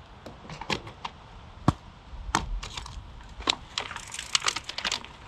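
Irregular sharp clicks and crackles, growing busier in the second half.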